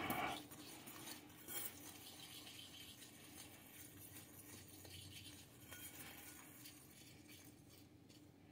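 Faint scraping and light clinks of a whisk stirring dry flour around a bowl.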